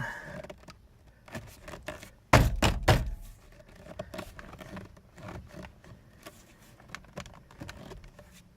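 A steering wheel being struck by hand to work it loose from the steering column shaft: a quick run of about four heavy thumps about two and a half seconds in, then light clicks and rattles as it is handled.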